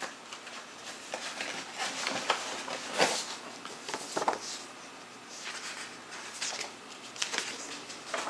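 Scattered soft rustles and light taps of a CD package being handled, the loudest about 3 seconds in.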